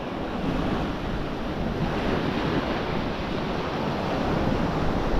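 Waves breaking and washing up on a sandy beach in a steady rush, with wind buffeting the microphone.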